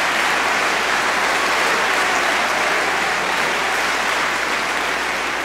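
A large audience applauding steadily, the clapping easing slightly near the end.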